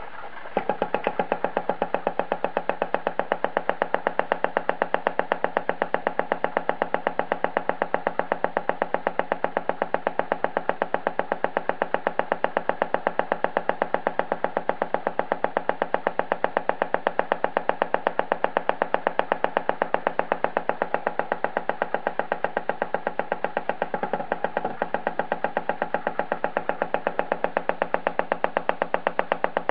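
Greiner Vibrograf B200A watch timing machine running: a rapid, perfectly even train of clicks, several a second, keeping time with the beat of the watch being measured. It starts about half a second in, after the button press, and briefly falters about twenty-four seconds in.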